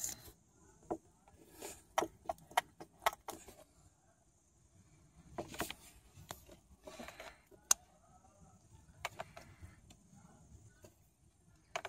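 Scattered light metallic clicks and taps as hands handle parts on an open Mercedes 500E V8 cylinder head, among the exposed bucket-type hydraulic tappets. There is a quick run of clicks about two to three seconds in and single sharp ticks later. The engine is not running.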